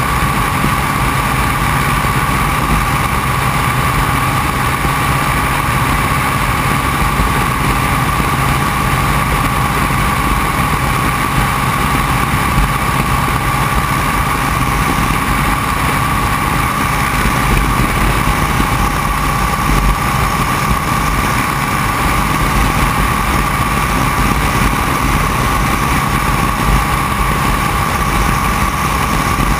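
Open-cockpit biplane's engine and propeller running steadily in cruise flight, a constant drone with a sustained tone, mixed with wind rushing past the open cockpit.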